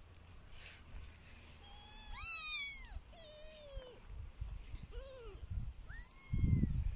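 Kittens mewing: several short, high-pitched calls, the loudest about two seconds in. A low rumble on the microphone comes in near the end.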